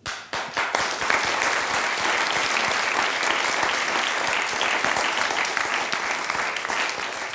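Studio audience applauding: a few scattered claps at first, swelling within a second into steady clapping from the whole crowd, which eases off near the end.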